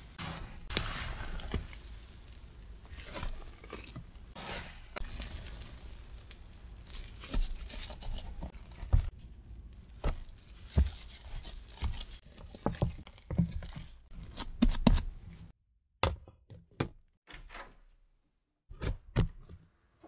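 Very wet whole-wheat ciabatta dough being stretched and folded by hand in a plastic tub: sticky tearing and squelching with irregular soft thunks as the dough flops back down. About three-quarters through it goes quiet apart from a few light taps and clicks on the plastic tub.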